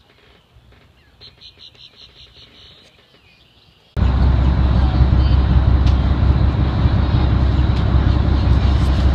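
A faint, quick series of bird chirps. Then, after an abrupt cut about four seconds in, a fishing party boat's engine runs loud and steady.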